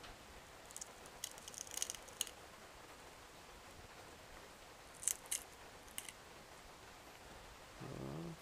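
Small clicks and crackles from the opened plastic case of a Garmin Forerunner 201 being handled at close range while its battery is pulled free of double-sided tape, in two short clusters. A brief hummed voice comes near the end.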